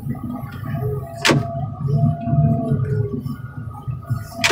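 Heavy machinery running with a pulsing low engine rumble and a steady whine, and two sharp metal clanks, one about a second in and one at the end, as truck cab scrap is handled.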